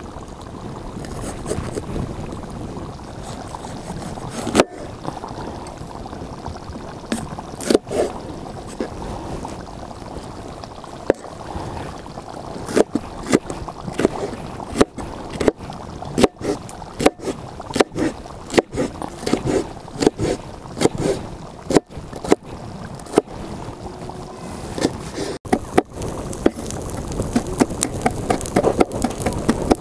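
Kitchen knife cutting a green bell pepper on a wooden cutting board: sharp knocks of the blade against the board, a few scattered at first, then about one or two a second from the middle on, coming faster near the end as the pepper is chopped fine. Before the cutting gets going there is a steady hiss of background noise.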